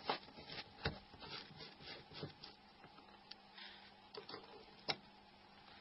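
Faint clicks and scraping of a small Torx screwdriver turning out tiny screws in a Nokia 3250 phone's lower block, with tweezers picking the screws out. The sharpest click comes nearly five seconds in, over a faint steady hum.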